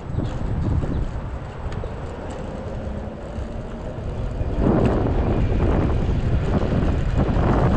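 Wind buffeting the microphone over the rumble of small wheels on rough asphalt as a Mototec 600W belt-drive electric skateboard, converted to a seated scooter, is ridden along a street. The noise grows louder about four and a half seconds in.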